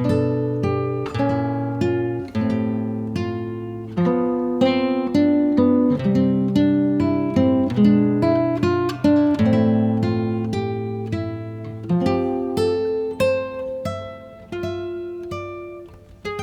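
Background music: acoustic guitar playing a melody of plucked notes, each ringing and fading.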